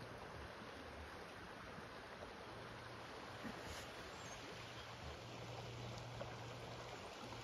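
Faint, steady rush of a flowing river, with a low steady hum underneath and no distinct events.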